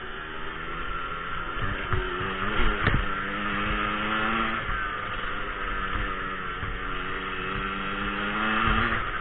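Motorcycle engine running under way, revving up over the first few seconds and then holding a fairly steady pitch. A sharp knock comes about three seconds in.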